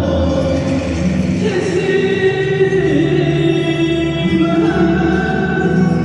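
Turkish folk dance music: a group of voices singing over instrumental accompaniment, steady and loud.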